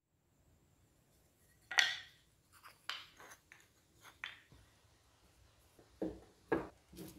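Scrap hardwood blocks clacking and knocking as they are handled, a few separate light knocks with the sharpest about two seconds in. Near the end, a few duller thumps as wood strips are set down on wax paper.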